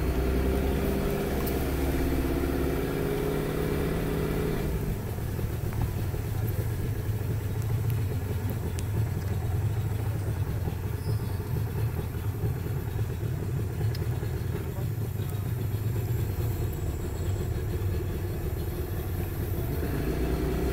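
Outboard motor of a motorised canoe running steadily under way, a low continuous engine rumble whose note changes about five seconds in.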